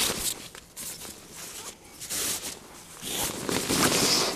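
Rustling and scuffing of synthetic fabric as camping gear is handled at a bivy sack, with an uneven run of soft noises that grows louder in the second half.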